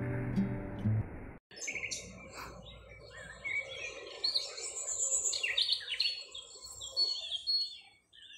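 Music ending abruptly about a second in, then many birds chirping and tweeting in quick, overlapping calls over a soft outdoor background.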